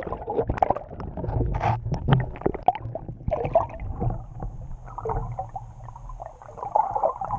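Muffled sound through a submerged action camera: water churning and bubbling, with scattered short clicks and knocks.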